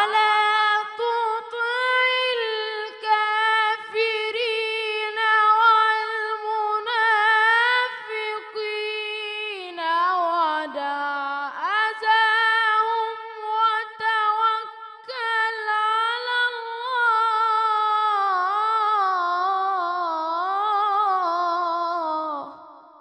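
A boy's high, unbroken voice reciting the Quran in the melodic tajweed style, without accompaniment, into a handheld microphone. He holds long, ornamented phrases, dips lower about ten seconds in, climbs back up, and fades out near the end.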